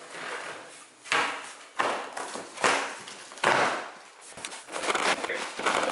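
A large cardboard shipping box being opened by hand: four loud tearing, scraping noises about a second apart, then a run of smaller rustles and crinkles of cardboard and packing near the end.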